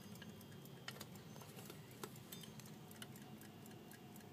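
Faint, rapid, even ticking of a 1925 Westclox Sleep Meter wind-up alarm clock's movement.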